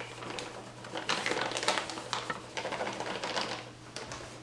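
Measuring cup scooping almond flour and tipping it into a bowl: a quick run of scrapes, taps and light rustling.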